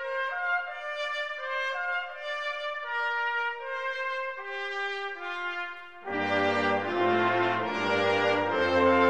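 Brass intro music. A lone melody line of held notes plays first, and about six seconds in a louder, fuller brass ensemble with low bass notes joins it.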